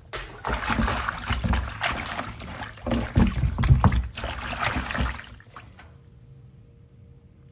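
Water sloshing and splashing in a plastic basin as Malabar spinach (alugbati) leaves and a piece of squash are swished and rubbed clean by hand. The splashing is irregular and stops about two-thirds of the way through, leaving only a faint steady hum.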